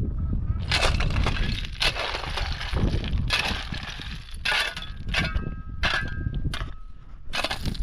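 Steel-bladed shovel digging into stony ground: the blade chops and scrapes into the dirt and loose rock chips clatter, in about seven irregular strokes roughly a second apart. A steady low rumble runs underneath.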